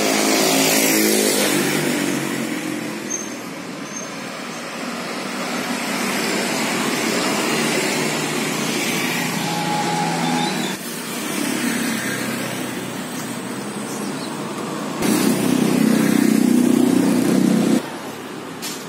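Road traffic on a street, mostly motor scooters and cars passing. One engine passes loudly about a second in, and another grows louder for the last few seconds before cutting off suddenly.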